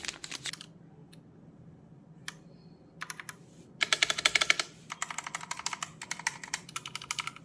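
Keys of a Cosmic Byte Artemis 68% mechanical keyboard with Outemu Red linear switches being pressed. A few clicks at the start, a quieter stretch, then fast runs of key clacks from about four seconds in.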